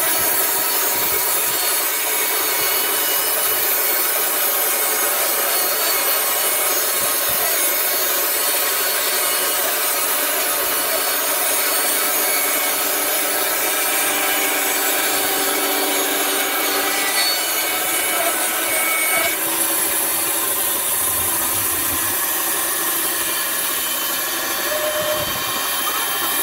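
Horizontal band sawmill's blade cutting lengthwise through a large log, a steady, unbroken sawing noise.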